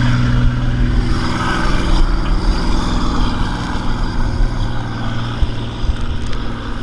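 Speedboat engine running steadily under tow load, with wind buffeting the microphone; the engine hum slowly fades as the parasail lifts away from the boat.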